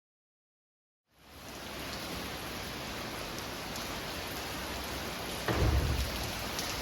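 Heavy rain falling steadily in a downpour from a passing cold front, fading in after about a second of silence. Near the end, a short, loud, low thump.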